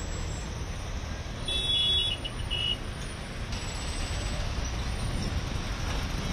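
Heavy road traffic of trucks, buses and cars in a jam: a steady engine rumble, with a couple of short high-pitched squeals between about one and a half and three seconds in.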